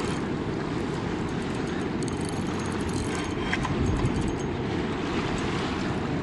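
Steady low rumbling roar of the Niagara River's fast water at the whirlpool. A few faint ticks come about two to three and a half seconds in.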